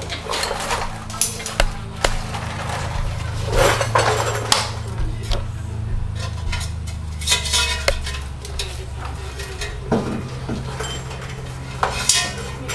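Steel exhaust pipe sections clanking and scraping against each other as the tail pipe is worked into place, an irregular series of sharp metallic clinks and knocks over a steady low hum.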